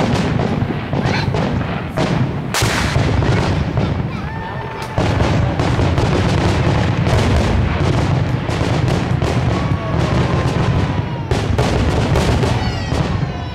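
Aerial fireworks shells bursting in a rapid, overlapping barrage of booms, the bangs following one another with no pause, with a few short whistles among them.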